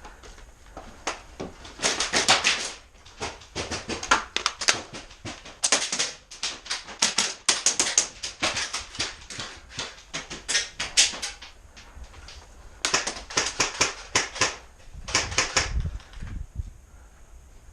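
Airsoft guns firing in rapid bursts of sharp clicking clatter, several bursts separated by short pauses, with the longest run in the middle.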